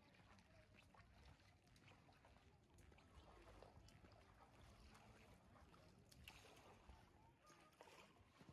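Near silence: faint outdoor ambience with a low rumble and a few scattered faint ticks.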